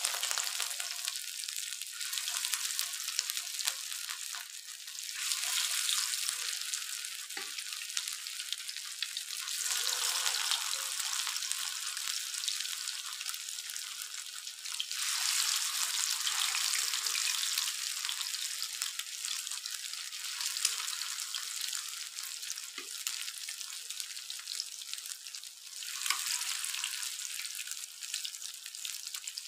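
Masala-coated fish pieces frying in hot oil on an iron tawa: a steady high sizzle that flares up several times as more raw pieces go into the oil. The loud sizzle is the water cooking out of the still-raw fish, which dies away once the fish is cooked through.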